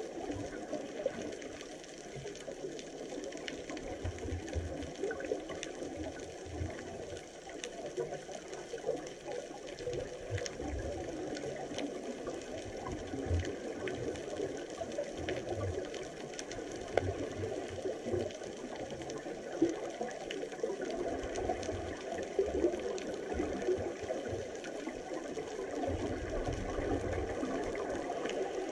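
Underwater ambience heard through a camera housing: a steady crackling hiss, with irregular low bubbling rumbles from scuba divers' exhaled air, stronger near the end.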